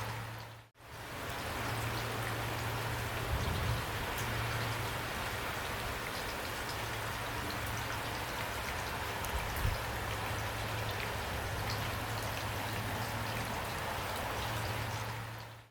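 Heavy rain falling steadily, a dense even hiss of drops. About a second in it fades out briefly and comes back, as at a loop join.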